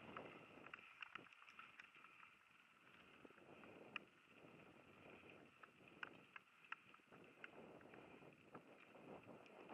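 Mountain bike rolling quickly down a packed-gravel forest singletrack, heard faintly: a soft hiss of tyres and wind, broken by about half a dozen sharp clicks and rattles from the bike over bumps.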